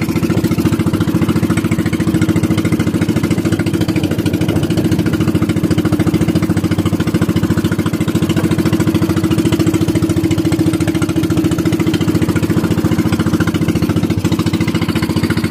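Engine of a motorized outrigger boat running steadily at cruising speed, a fast, even putter with no change in pace.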